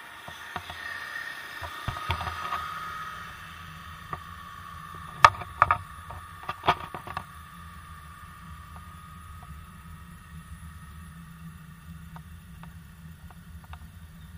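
A motor scooter's engine whine passing close by and fading away over the first several seconds, over a steady low rumble of riding. About five to seven seconds in, a quick cluster of sharp knocks and rattles.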